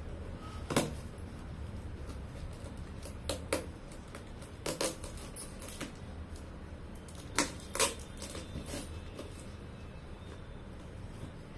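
Cardboard shipping box being opened by hand: a scattering of short, sharp crackles and snaps of tape and cardboard, some in quick pairs, over a low steady hum.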